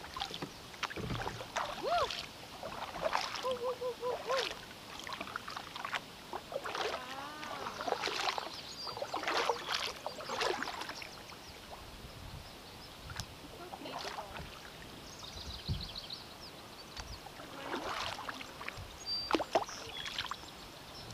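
Double-bladed kayak paddle strokes, each blade dipping into the river and splashing out again, water running off it, one stroke after another about every second or so.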